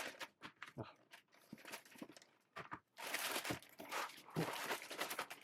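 Parcel packaging being handled: scattered light taps and rustles, then about three seconds in a longer, louder spell of crinkling and tearing as the packing material is pulled about.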